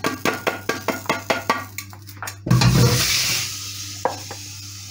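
Quick small knocks and scrapes of a utensil against a pan, then about halfway through a sudden loud rush as the freshly toasted whole spices are tipped into a wooden mortar. The rushing rattle fades out over a second or so.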